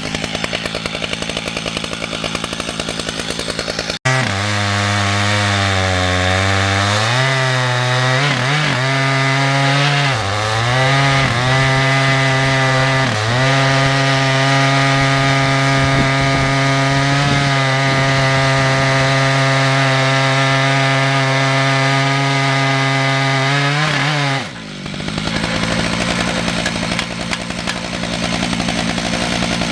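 Two-stroke chainsaw ripping a red oak log lengthwise in a chainsaw mill, running at high speed with its pitch sagging briefly a few times as the chain bites. About four seconds in the sound changes abruptly, and near the end the high running note drops away.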